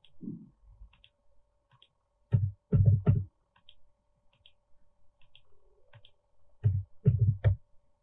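Computer mouse and keyboard clicks: two quick groups of three sharp clicks, about two and a half seconds in and again near the end, with fainter ticks between, over a faint steady hum.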